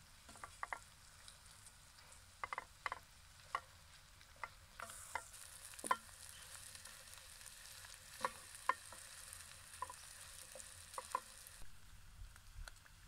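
A wooden spatula stirs chunks of potato and onion frying in a metal pot. Irregular knocks and scrapes of the spatula against the pot sound over a sizzle that grows louder about five seconds in and drops back shortly before the end.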